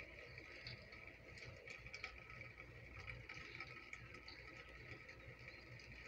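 Faint rain pattering on concrete: irregular small drop ticks over a steady hiss, with a low rumble underneath.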